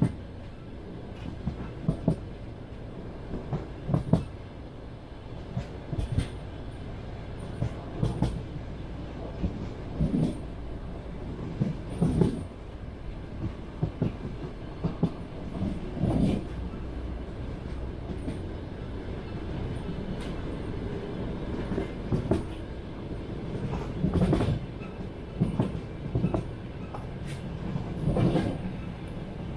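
Passenger train running on jointed track: wheels clacking over the rail joints in short clusters of knocks about every two seconds, over a steady rolling rumble.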